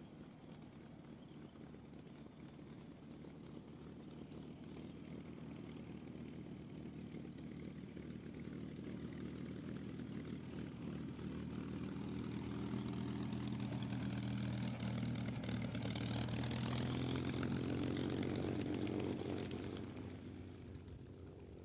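Tsunami racer's Rolls-Royce Merlin V-12 engine running as the aircraft taxis, its propeller turning. The steady engine drone grows louder over the first two-thirds, is loudest for several seconds, then drops away near the end.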